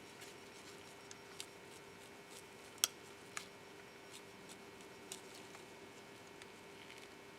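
Faint, scattered light ticks and rubbing from the small plastic parts of a car window switch panel being handled while its contacts are gently cleaned with a fine abrasive cloth. There is one sharper click about three seconds in.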